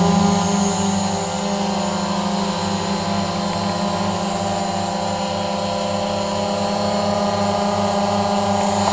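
Quadcopter drone hovering, its propellers making a steady, even-pitched hum, a little louder in the first second.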